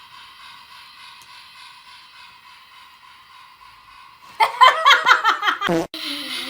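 Model train running along its track with a faint, steady whir of motor and wheels. About four seconds in, a person laughs loudly and briefly.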